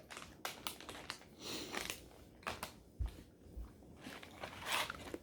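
Someone chewing gummy candy, with scattered small clicks and soft rustles of a snack wrapper.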